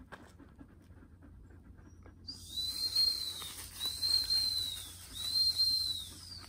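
Dog-training whistle blown in three long, slightly arching high notes of about a second each, starting a little over two seconds in, with a fourth note beginning at the end. This is the whistle signal for 'search', sending the dog off to search.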